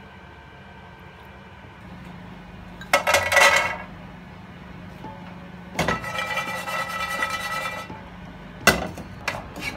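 Walnut halves poured into a nonstick frying pan, rattling against the pan briefly about three seconds in. More rattling in the pan follows from about six to eight seconds, with a few sharp clinks near the end, over faint background music.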